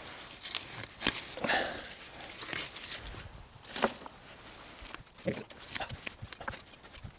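Sickle cutting down potato tops: irregular swishes and rustles of foliage, a few strokes a couple of seconds apart.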